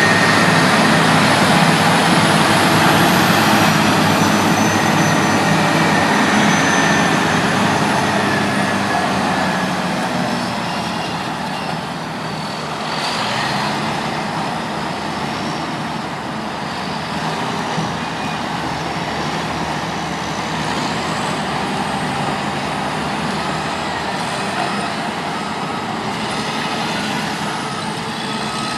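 Heavy diesel machinery working: the Caterpillar D8T bulldozer's engine under load as it frees a stuck water truck. It is louder for the first ten seconds or so, then eases off a little, with faint high whines over the engine.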